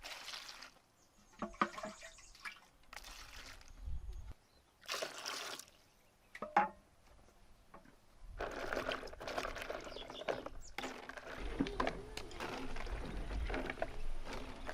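Water being handled: short spells of splashing and pouring, then a steadier run of water sound from about eight seconds in.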